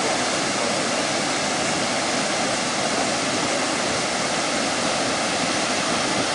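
Muddy floodwater rushing in a steady torrent over the edge of a low concrete road crossing and churning below it.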